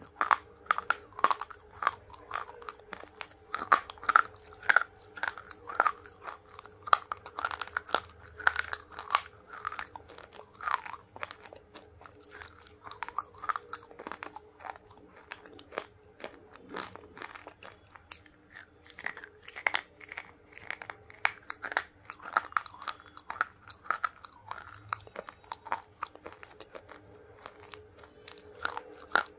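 Close-up crunching and chewing of dry, brittle pink clay bars: quick runs of crisp bites and crunches, sparser in the middle and picking up again later, over a faint steady hum.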